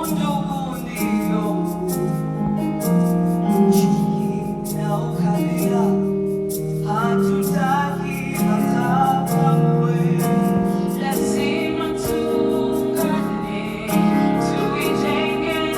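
Background music: a gentle piano-led track with a melody line.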